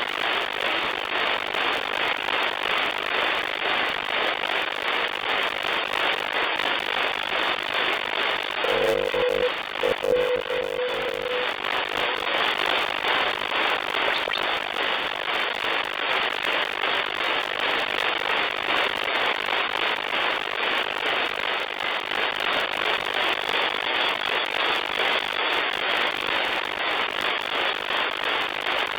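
Shortwave band static hissing steadily through an SDR receiver tuned to the 40-metre amateur band, between voice transmissions. About nine seconds in, a steady tone with overtones cuts in for roughly two and a half seconds.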